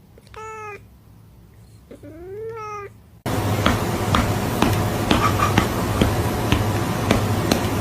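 A cat meows twice, two short calls about two seconds apart, the second rising then falling in pitch. About three seconds in, a much louder steady hiss-like noise with scattered clicks cuts in abruptly and keeps going.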